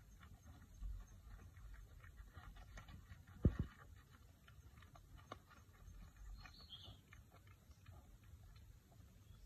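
Faint crackling and rustling of a dry leaf and dirt as a wild boar piglet noses and roots at it, with scattered small ticks and a short low thump about three and a half seconds in.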